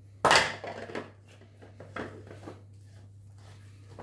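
Hard plastic RO membrane housings handled on a table: one loud clunk just after the start, then a few lighter knocks and rattles over the next two seconds.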